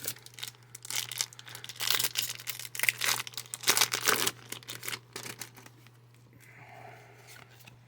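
Foil wrapper of a Yu-Gi-Oh booster pack crinkling and tearing as it is handled and opened, a run of crackly rustles lasting about four seconds before it goes quiet.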